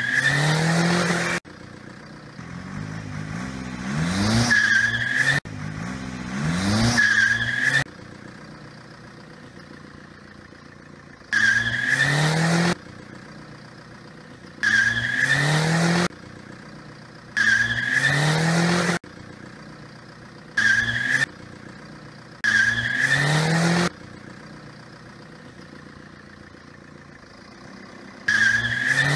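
Dog giving repeated loud vocal cries that sound like a car engine revving and tyres squealing. There are about nine bursts of one to three seconds with pauses between, and some slide up in pitch.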